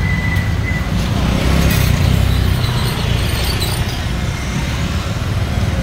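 Street traffic noise: a steady low rumble of passing vehicles, with a brief thin high tone in the first second.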